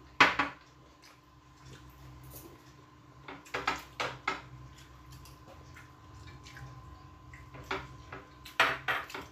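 Glass plates, bowls and tumblers clinking and knocking on a table while a meal is eaten by hand. The sharpest clink comes right at the start, with a cluster of clinks about three and a half seconds in and more near the end.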